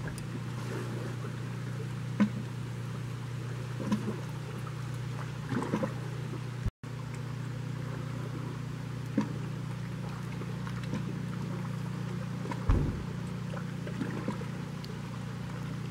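Steady low hum of an idling boat engine, with a few faint knocks over it and a very brief dropout a little under halfway.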